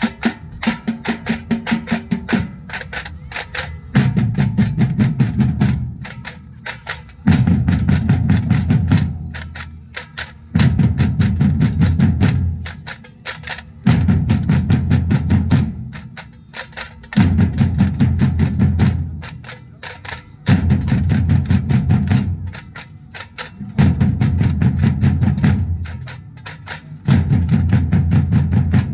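A large street drumming group playing together in a fast, dense rhythm. A phrase repeats about every three and a half seconds: deep drums pound together for about two seconds, then only lighter, sharper strokes carry on until the deep drums come back in.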